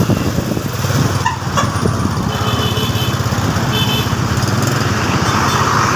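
A vehicle engine running loud and steady close by, with a rough, pulsing note. A few faint, brief high tones sound over it in the middle.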